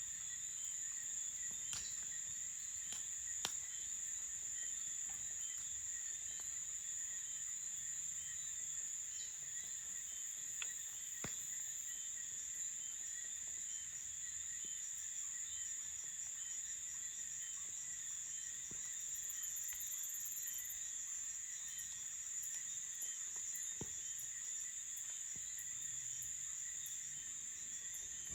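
Crickets chirping in a continuous high-pitched trill, with a lower, rhythmically repeating chirp layered beneath it. Occasional sharp pops from a crackling campfire are scattered throughout.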